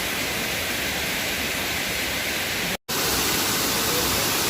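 Waterfall, a steady rush of falling water. It cuts out for an instant about three seconds in, then goes on slightly louder.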